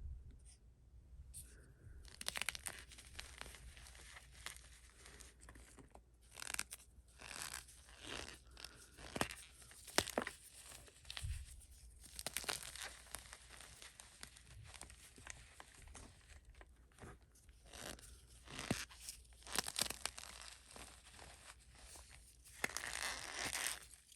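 Blocks of gym chalk topped with cornstarch being pressed and crushed by hand, with crunching and squeaky cornstarch sounds in an irregular run that starts about two seconds in.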